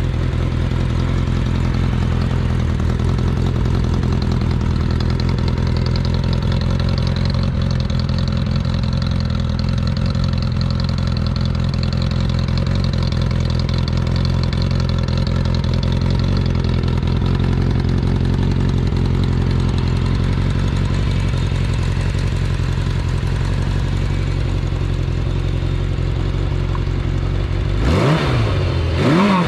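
Kawasaki Z500FX air-cooled inline-four engine idling steadily, then blipped twice near the end, the revs rising and falling quickly. The engine runs smoothly with no abnormal noises, in good running order.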